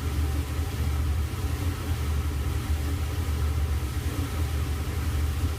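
Kenmore Elite electric dryer, an LG-built model 796.81073310, running a steam refresh cycle: a steady low rumble of the drum and motor.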